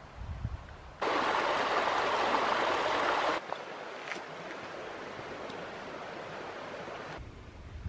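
Flowing stream water: a steady rushing hiss that comes in suddenly about a second in, is loudest for about two seconds, then continues more quietly. Low wind rumble on the microphone is heard at the start and near the end.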